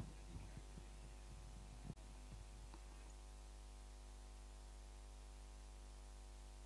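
Faint steady electrical mains hum with a stack of even overtones, with a few soft knocks in the first two and a half seconds and a single click about two seconds in.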